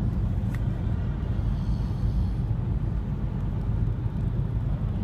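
Steady road and engine rumble heard inside a moving car's cabin, with a faint tick about half a second in.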